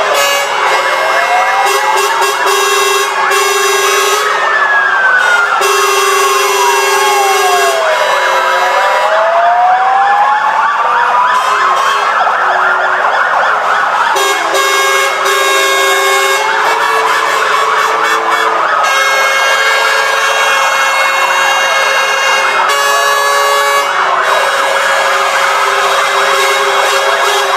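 Several fire engine sirens wailing at once, their pitches rising and falling slowly and out of step with each other. Lower steady tones start, stop and change pitch underneath them.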